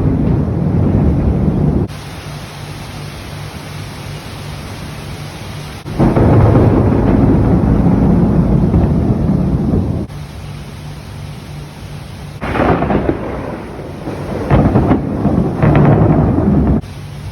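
Thunder rumbling in three long, loud rolls during a rainstorm, each cutting off suddenly. Between them are quieter stretches of steady rain hiss over a faint low hum.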